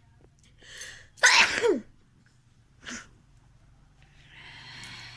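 A person sneezes once, loudly, after a quick breath in, the voice of the sneeze falling in pitch as it ends. A short breathy burst follows a second later, then a softer, longer breathy noise near the end.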